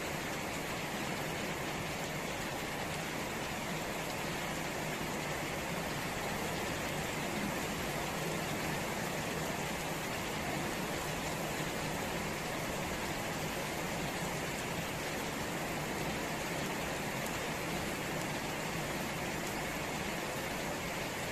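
Steady rain falling on garden plants and puddled ground, an even hiss with no single sound standing out.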